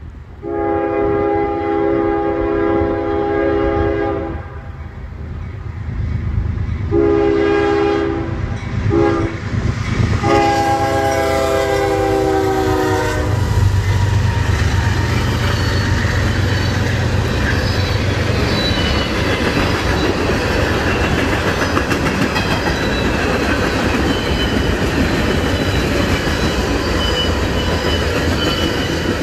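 Diesel freight locomotives sounding a multi-note air horn for a grade crossing: two long blasts, a short one and a long one, the last sliding slightly down in pitch as they pass. The locomotives then rumble past, and the freight cars, tank cars among them, roll by with steady wheel clatter.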